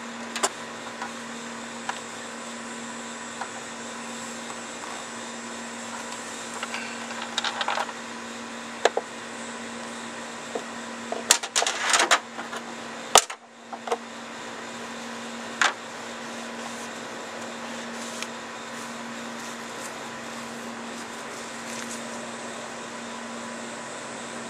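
Nissan Maxima's 3.0-litre twin-cam V6 idling steadily, a constant hum, with scattered clicks and a cluster of sharper knocks about halfway through.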